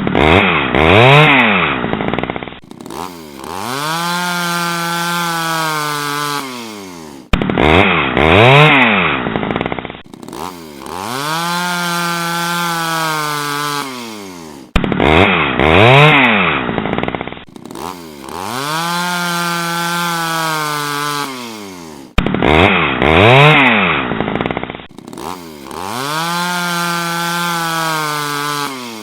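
Chainsaw engine sound effect, one clip repeated four times. Each time it starts suddenly, revs up and drops back, then revs again, holds a steady high rev for a few seconds and winds down.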